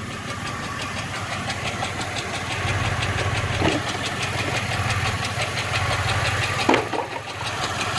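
Chevrolet Impala SS V8 idling with a fast, even engine tick, running rough with a misfire that makes the engine shake.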